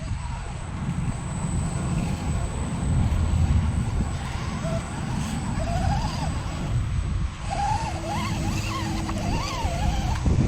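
Small RC rock crawler's electric motor and gears whining, the pitch rising and falling with the throttle in the second half, over a steady low rumble.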